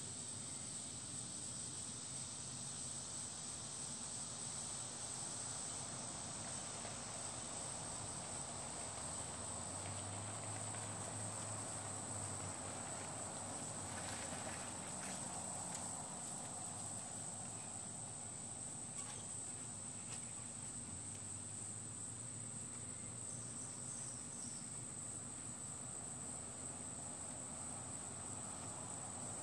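Steady high-pitched trilling of insects, unbroken, over faint outdoor background noise.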